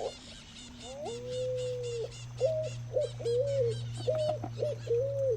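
Low whistled bird calls in a series of short notes that step up and down in pitch, over a fast, steady high-pitched chirping.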